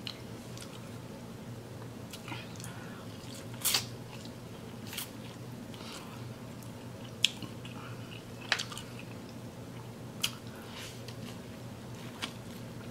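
A person eating seafood boil with their hands: chewing with scattered wet mouth clicks and lip smacks every second or two, over a faint steady hum.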